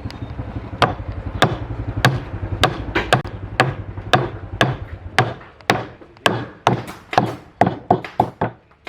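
A hand tool striking wood in regular blows, about two a second, coming quicker near the end.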